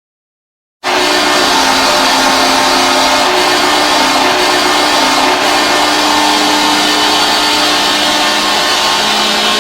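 NHL arena goal horn sounding steadily over a dense wash of loud noise. It starts abruptly about a second in and holds its tones unchanged, then stops abruptly just after the end.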